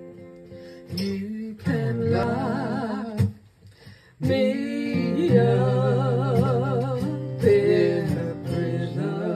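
A song with acoustic guitar accompaniment; a singer comes in a little under two seconds in, holding notes with a wide vibrato, with a brief pause just before the middle.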